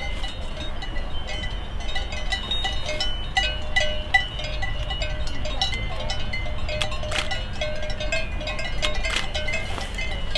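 Cowbells on grazing cows clanking irregularly, several bells at different pitches, over a low rumble of wind on the microphone.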